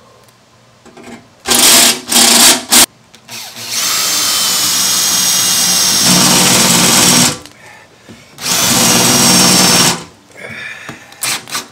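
Cordless drill/driver running in bursts as it drives fasteners into the go-kart's metal seat back: three short bursts in the first three seconds, then a long steady run of about three and a half seconds, another run of about a second and a half, and a few brief blips near the end.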